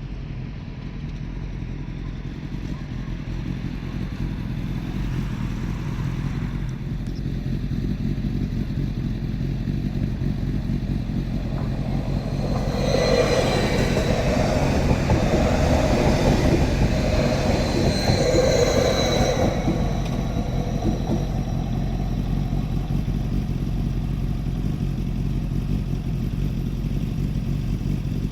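Steady low diesel-train rumble. In the middle, for about seven seconds, it grows louder with a sustained tone that shifts between two pitches.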